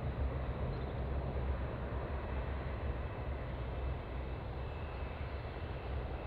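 Boeing 787-10's jet engines heard from the ground as the airliner climbs away after takeoff: a steady low rumble with a thinner hiss above it.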